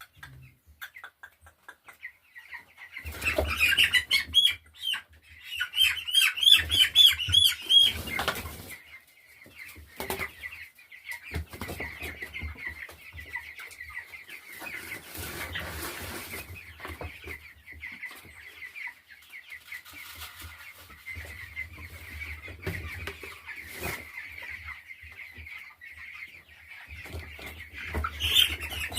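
A flock of nearly three-week-old chicks peeping, many high calls overlapping, loudest in a stretch a few seconds in and again near the end, with some wing flapping.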